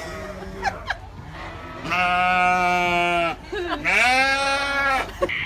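A black-faced sheep bleating twice in long, drawn-out calls. The first is held steady for over a second; the second rises in pitch at its start, then holds.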